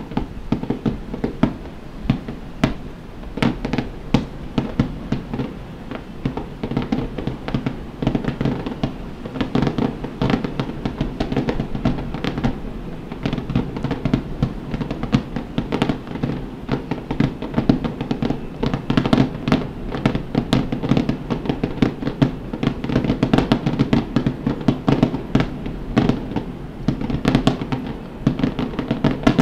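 Rapid-fire starmine fireworks barrage: aerial shells bursting in a dense, continuous string of bangs, growing denser and louder in the second half.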